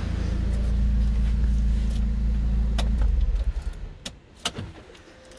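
Car's electric radiator cooling fan running with a steady low hum after the engine has been switched off, then stopping about three seconds in; a few sharp clicks follow. Why the fan keeps running with the engine off is unexplained to the owner, who means to check it with diagnostics.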